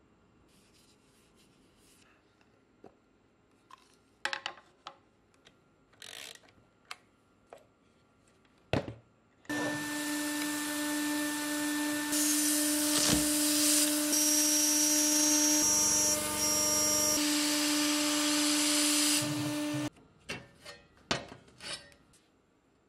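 A few light clicks and knocks of parts being handled, then, about nine seconds in, a CNC router spindle milling an aluminium sheet: a loud, steady whine with a high tone joining midway, running about ten seconds and stopping abruptly. A few sharp clinks follow near the end.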